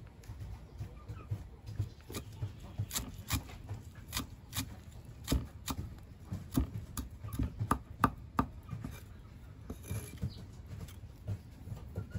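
A series of sharp knocks at an uneven pace, one to three a second, loudest around five and eight seconds in and thinning out over the last few seconds.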